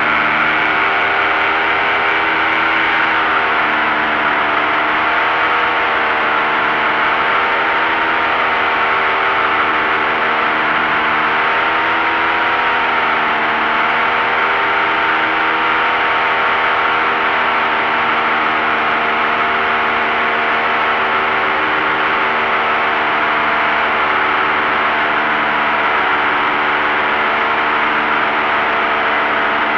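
Paramotor engine and propeller droning steadily in flight, its pitch drifting slightly up and down.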